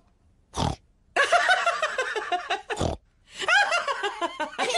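Cartoon pig characters snorting and laughing: a short snort about half a second in, laughter from about a second in, another snort near three seconds, and more laughter after.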